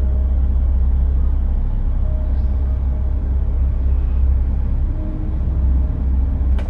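A steady low rumble of background noise, with faint brief hums over it a couple of times.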